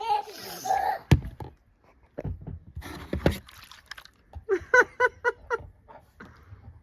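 A sharp knock and a few dull thumps, then a child laughing in a quick run of short, high-pitched bursts.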